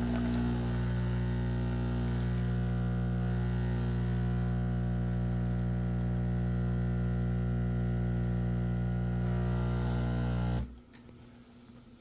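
Terra Kaffe TK-02 super-automatic espresso machine running its pump to pull a single espresso shot: a steady hum that cuts off suddenly about ten and a half seconds in, as the shot ends.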